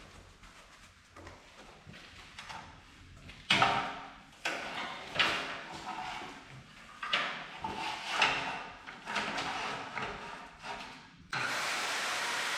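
Several irregular scrapes and clanks of metal being handled and positioned, then about 11 seconds in the Evolution S185CCSL 7¼-inch metal-cutting circular saw switches on and runs with a loud, steady whine.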